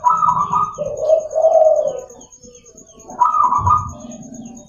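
Zebra dove (perkutut) cooing: two song phrases, each opening on a higher note and dropping into lower, rolling coos, the second starting about three seconds in.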